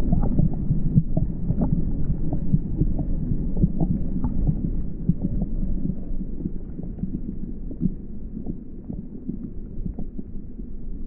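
Muffled underwater sound from a camera held just under the surface of a river: a low, throbbing rumble of moving water with many small clicks and ticks, all high sounds cut away, growing quieter in the second half.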